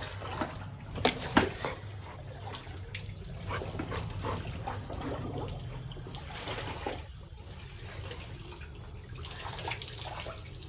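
Water splashing and running in a tiled bathroom as clothes are washed by hand, with a couple of sharp knocks about a second in.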